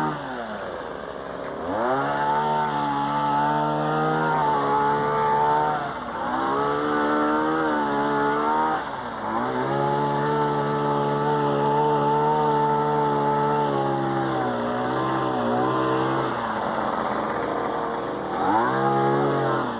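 A small gasoline engine running, its pitch dropping sharply and climbing back up about four times as the throttle is let off and opened again, with smaller wobbles in between.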